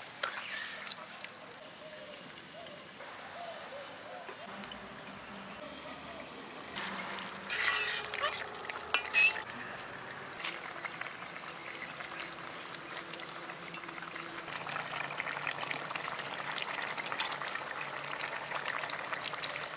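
Curry bubbling and sizzling in a metal karai over a wood fire, with a spatula stirring it and light clicks throughout. Two loud short clatters come about eight and nine seconds in, and a thin steady high tone runs underneath.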